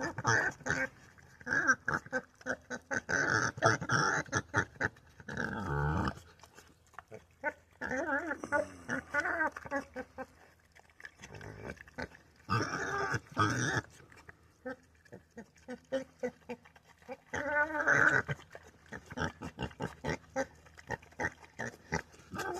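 Pet pig eating, with chewing and smacking clicks and several bursts of grunting vocal noises between mouthfuls.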